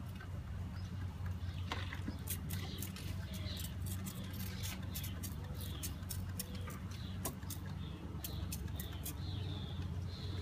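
A package of honeybees buzzing in its cage as a steady low hum, with many quick sharp ticks and brief high squeaky chirps over it.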